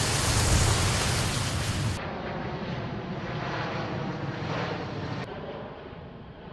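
Wind buffeting the microphone, loud and rumbling, for about two seconds; then the steady, distant drone of a military jet transport plane flying over, fading near the end.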